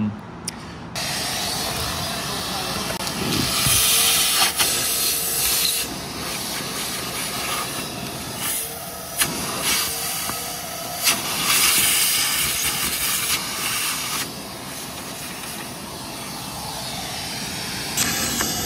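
Vacuum cleaner sucking through a ribbed hose, its nozzle worked over the camshafts of an open cylinder head. It is a steady rushing hiss that starts about a second in and swells and dips as the nozzle moves, with a few sharp clicks along the way.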